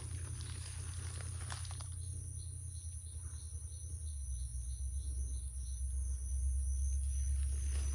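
An insect chirping high and rhythmically, about two to three chirps a second, over a steady low rumble, with a few faint clicks in the first couple of seconds.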